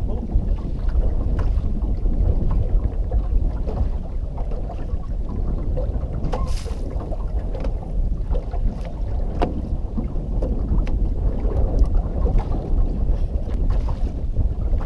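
Wind buffeting the microphone over water lapping against a small fishing boat's hull: a steady low rumble, with a few faint ticks and knocks scattered through.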